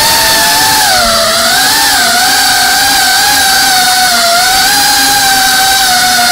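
Brushless motors and propellers of a GEPRC CineLog 35 cinewhoop whining steadily in flight, the pitch dipping and rising slightly as the throttle changes.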